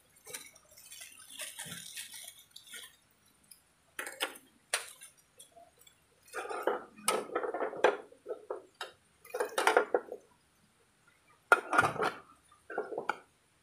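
A plastic wrapper rustling, then a German military aluminium mess kit being handled: short bursts of clinking and scraping as the pot and its lid knock together.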